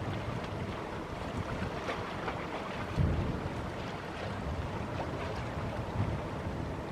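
Wind buffeting the microphone in gusts, a rumbling rush with low thumps about three and six seconds in.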